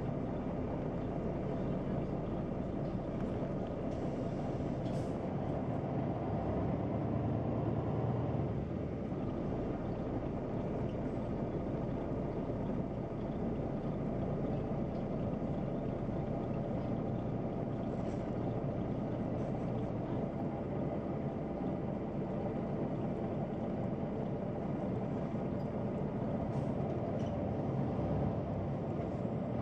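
Neoplan N 4416 Centroliner city bus heard from inside: the diesel engine runs as the bus slows and pulls up, then idles steadily while it stands.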